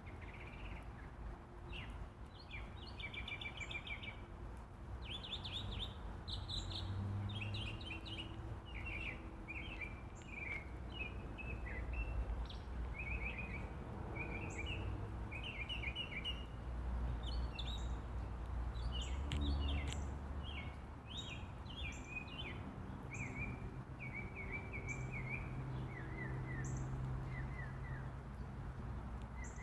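Mockingbird singing: a long, unbroken run of varied chirping phrases, each repeated a few times before switching, over a steady background hiss.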